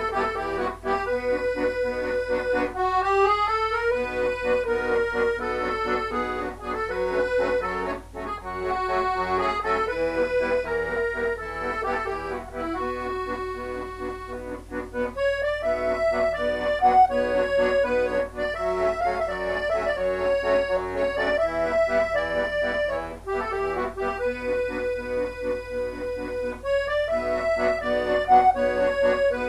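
Piano accordion played solo: a waltz tune, with a quick rising run about three seconds in and short breaks in the phrasing about halfway through and near the end.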